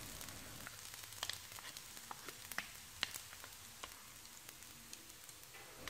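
Chopsticks stirring fried rice in a frying pan, making faint scattered light clicks and scrapes. The burner is switched off, so only a faint sizzle remains under them.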